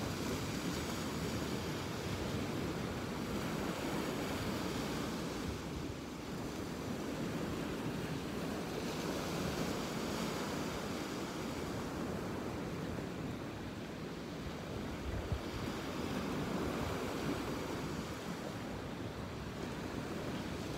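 Ocean surf washing onto a beach, a steady rush of waves that swells and eases every several seconds, with some wind on the microphone.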